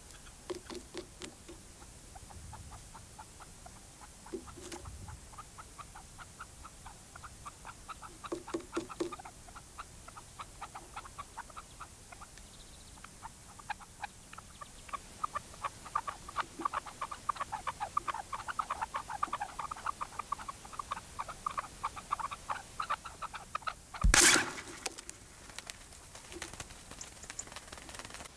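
Red-legged partridges calling, the caged decoy and the wild bird on the ground: short clucking notes, scattered at first, then in fast dense runs from about halfway through. A single sudden loud bang cuts across the calling about 24 seconds in.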